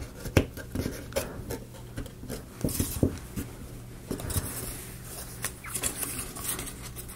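Laser-cut plywood model parts being pressed and worked into place by hand: irregular small wooden clicks and taps with scraping and rubbing between them, as a stiff piece is pushed down into its slot.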